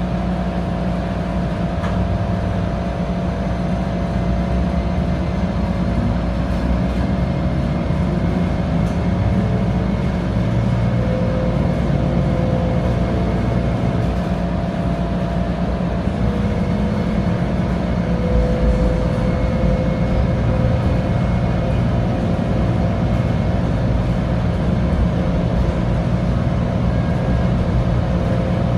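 Interior sound of a Bombardier Flexity light rail car pulling away from a station and getting under way: a steady hum with a low rumble from the running gear, growing slightly louder as it gathers speed.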